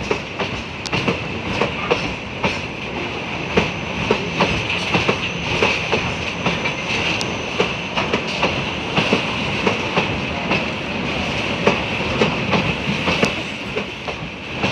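Open freight wagons loaded with scrap metal rolling past, their wheels clattering over the rail joints in quick, uneven clicks. Under the clicks runs a steady, high-pitched wheel squeal.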